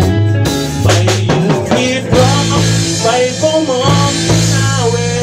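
Band rehearsing a rock song live: electric guitar and bass guitar playing with drums, with pitch-bending melody lines over a steady bass.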